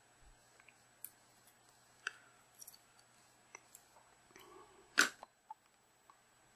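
Scattered light clicks and ticks of a plastic pry tool and cracked phone digitizer glass being handled as the digitizer's ribbon cable connector is worked free. One much sharper click comes about five seconds in.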